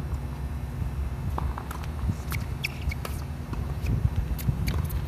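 Wind buffeting the phone's microphone, a steady low rumble, with faint scattered ticks and taps from play on the hard tennis court.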